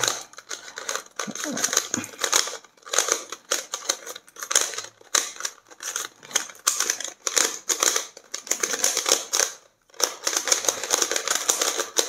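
Non-magnetic YuXin Treasure Chest 3x3 puzzle cube turned fast during a timed solve: a rapid, continuous clatter of plastic layers clicking into place, with a short pause near the end.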